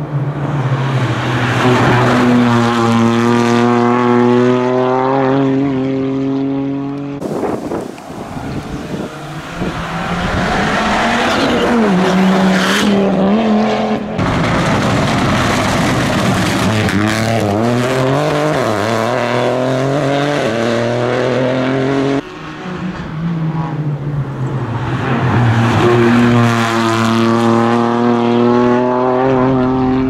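Small front-wheel-drive rally cars, among them a Peugeot 208 Rally4, driven hard along a tarmac and cobbled stage. The engine note climbs through the gears and drops at each shift, with an abrupt change of car and sound three times, about every seven or eight seconds.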